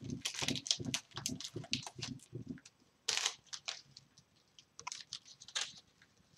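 Trading-card packs and cards being handled: short crinkling and tearing noises from the pack wrappers and cards, busiest in the first couple of seconds, with one louder crinkle a little after three seconds in.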